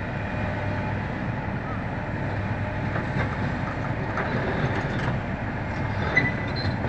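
Komatsu PC300 excavator's diesel engine running steadily as the machine tracks slowly forward, with a few faint clicks and clanks from the steel tracks.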